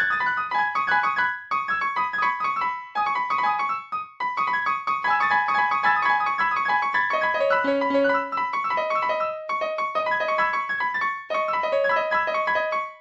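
Piano music: quick runs of short, high notes in phrases, with a few brief breaks between them.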